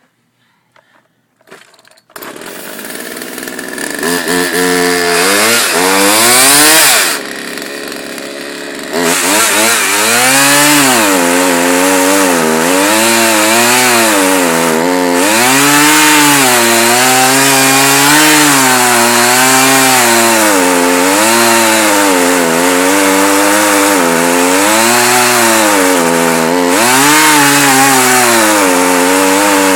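Craftsman 42cc two-stroke chainsaw running and cutting wood: it revs up hard, drops back briefly, then its engine speed dips and recovers over and over as the chain bites into a firewood block. The owner thinks the chain is tightened a little too much.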